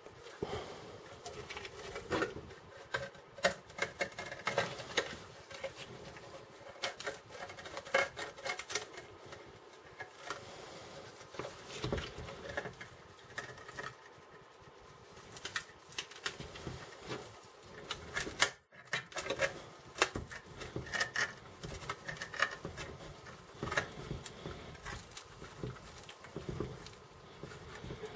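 Many irregular clicks, scrapes and small rattles of a heavily rusted steel machine-gun drum magazine being handled, its lid worked open by hand.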